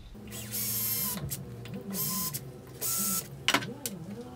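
Cordless drill with a very fine bit marking pilot holes in an aluminium plate held in a vise, run in three short bursts. The motor whine rises and falls with the trigger, with a hiss each time the bit cuts.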